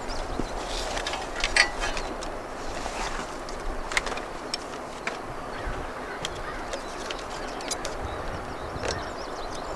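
Birds calling outdoors, with scattered clinks and knocks of gear being handled and hung on the back of a van, the loudest about a second and a half in.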